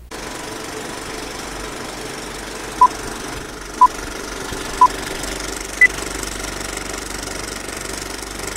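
Old-film countdown leader sound effect: a steady film-projector rattle with crackle, and three short beeps a second apart followed by a fourth, higher beep.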